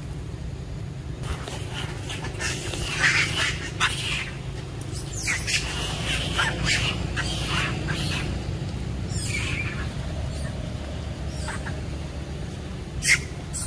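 Long-tailed macaques squealing and screeching: a burst of short, high-pitched cries in the first half, then a few scattered ones and one sharp loud cry near the end, over a steady low rumble.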